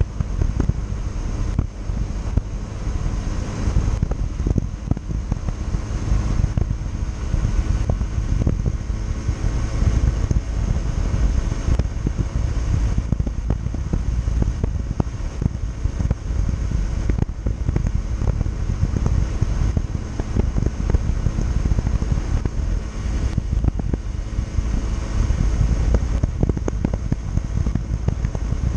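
Yamaha Factor 150 motorcycle engine running steadily while riding, under heavy wind rumble on the microphone.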